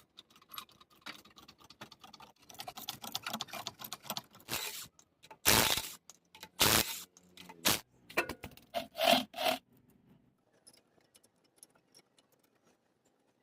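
Metal tools and car parts scraping and clinking against each other during work on a rear wheel hub. Several loud sharp knocks come in the middle, then it goes to faint ticks for the last few seconds.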